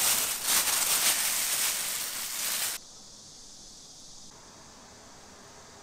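Dough frying in a deep fryer of hot oil: a loud, crackly sizzle that cuts off abruptly about three seconds in, leaving a faint steady hiss.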